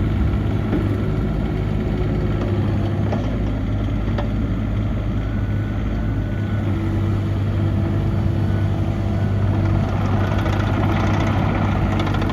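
Diesel engine of a CAT 304D CR mini excavator running at a steady speed: a low, even hum, with a faint higher tone coming in about halfway through.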